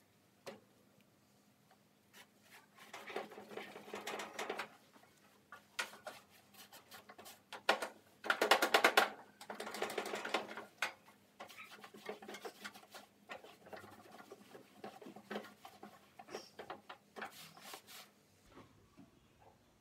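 Cloth scrubbing a greasy stainless steel barbecue side shelf in bursts of quick back-and-forth strokes. The longest and loudest run comes about eight seconds in.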